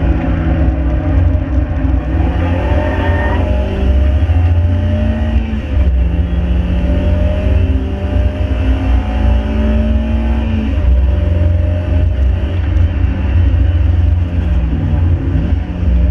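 Ford 1.7 Puma four-cylinder engine in a Mk5 Fiesta under hard acceleration, over a heavy low road rumble. The revs climb slowly and drop sharply twice, about six and eleven seconds in, as it changes up a gear.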